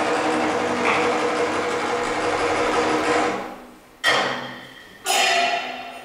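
Chinese opera–style stage percussion: a fast, dense roll, then two single strikes about a second apart, each ringing and fading away.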